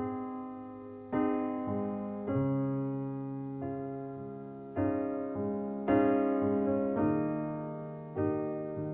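Piano chords played slowly, a new chord struck about once a second, each ringing on and fading before the next.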